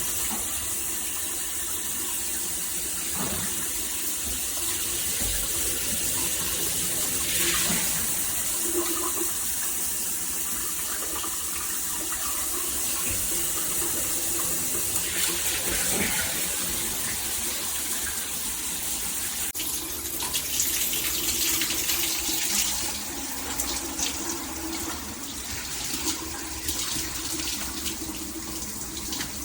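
Water spraying steadily from a shower head. The sound of the spray changes about twenty seconds in and becomes more uneven.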